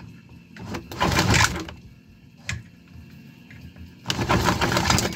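Homemade 3D-printed V-twin engine being spun over in start attempts: two harsh bursts of cranking noise, each about a second long, one about a second in and one near the end, with a short one between. The engine does not start. It has seized, its crankshaft splitting apart.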